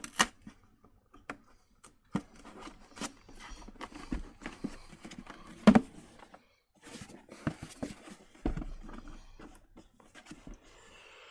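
Irregular clicks, taps and knocks of a Revitive foot machine's casing and parts being handled and fitted back together, with one sharper knock about halfway through.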